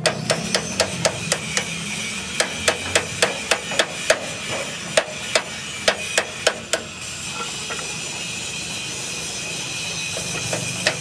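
Hand hammer striking steel at a truck chassis's leaf-spring hanger: a run of sharp, ringing metal-on-metal blows a few a second, with a short pause about two seconds in, stopping about seven seconds in. A steady hiss follows.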